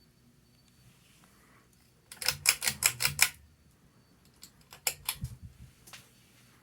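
Ceiling fan pull chain being worked: a fast run of about seven sharp clicks and rattles, then a few more clicks a couple of seconds later and a last one near the end.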